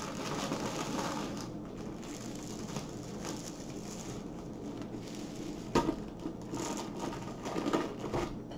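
Plastic wrapping crinkling and rustling as a plastic-wrapped rolled canvas is handled, with one sharp knock about two-thirds of the way through.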